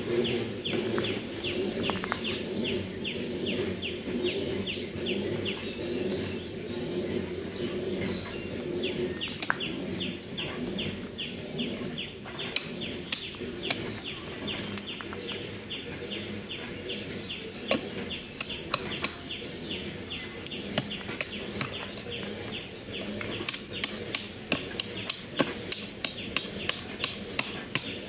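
Ambience at a pond's edge. A rapid chirping call repeats about three to four times a second over a steady high-pitched insect drone. From about halfway there are sharp taps of a hard object knocked against a tree root, coming in a quick run near the end.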